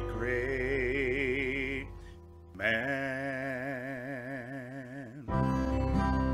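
A singer holds two long notes with vibrato, with a short break between them, over a soft accompaniment. About five seconds in, acoustic guitar strumming takes over.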